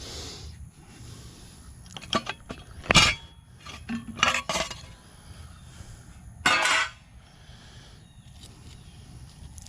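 Metal tools and loose engine parts clinking and knocking while a small go-kart engine is taken apart: a few separate sharp clinks, then a longer metallic rattle about two-thirds of the way through.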